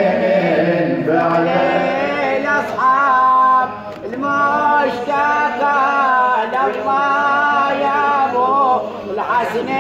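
A male reciter singing an unaccompanied Arabic nawha (Shia lament) into a microphone: long, held lines that bend and waver in pitch, with a short breath pause about four seconds in.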